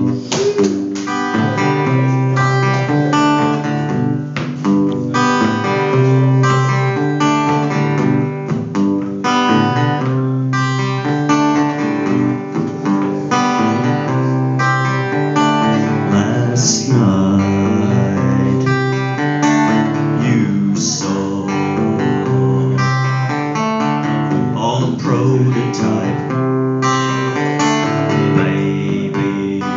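Acoustic guitar strummed in chords with a steady rhythm.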